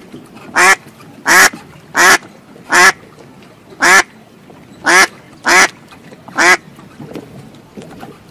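A duck quacking: eight loud single quacks, spaced about half a second to a second apart.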